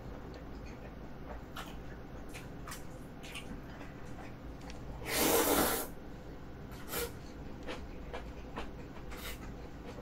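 A person slurping up a mouthful of jjapaghetti noodles once, about five seconds in, with another slurp starting at the very end. Faint clicks of chewing and chopsticks fill the gaps.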